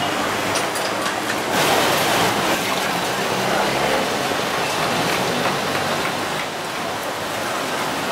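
Steady hiss-like wash of busy night-market street noise, with no single sound standing out.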